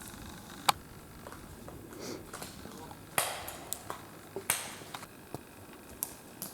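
Scattered sharp clicks and snaps, the loudest under a second in, with two brief rustling swishes about three and four and a half seconds in.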